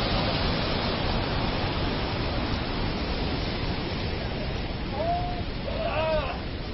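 Steady rushing of a large monsoon-fed cascading waterfall. About five seconds in, a short high call sounds over it, then a second call that rises and falls in pitch.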